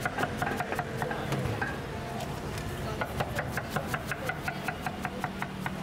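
Cleaver chopping a guava into slices on a wooden cutting board: quick, even knocks about five a second, in two runs with a short pause between them.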